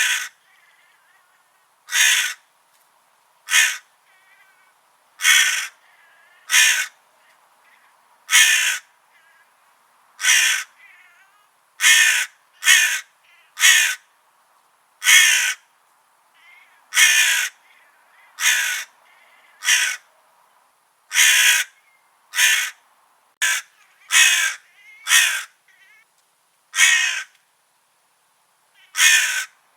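Crow cawing over and over: about twenty short, harsh caws, one every one to two seconds, some coming in quick pairs. Played as a crow repellent sound.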